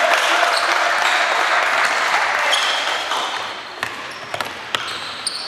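Basketball dribbled on a wooden sports-hall floor: a run of sharp separate bounces from about four seconds in, after a loud wash of court and crowd noise in the hall.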